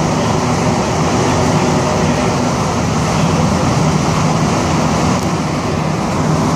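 Montreal metro AZUR train running at speed through a tunnel, heard from inside the car: a steady, loud rumble of the rubber-tyred train with a low hum under it.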